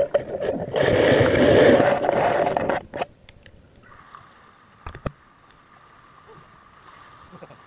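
Water rushing and bubbling against an action camera's waterproof housing under the sea, loud, stopping abruptly about three seconds in. After that only a faint, muffled background with a few light knocks, as heard through the closed housing.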